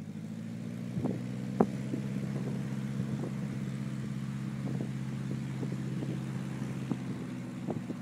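Piston engine of a vintage light aircraft droning steadily, with a few short clicks over it.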